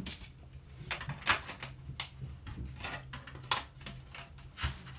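Irregular metal clicks and knocks of hand tools working at scrap appliance parts, a few sharper knocks standing out, over a faint steady low hum.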